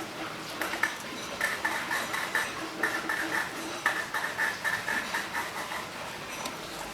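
Quick, ringing metallic clicks in short runs from a hand tool working a bolt on a Honda CRF250 engine's top end during a camshaft change.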